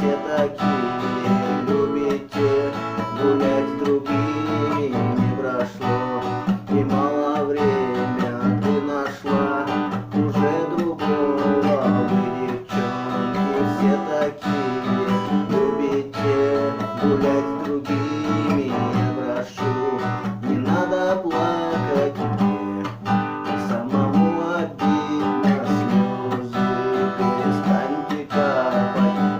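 Acoustic guitar strummed in a steady rhythm, playing an instrumental passage of the song.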